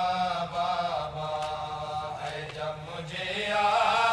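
Men's voices chanting an Urdu noha, a Shia lament, in long drawn-out sung lines with no instruments.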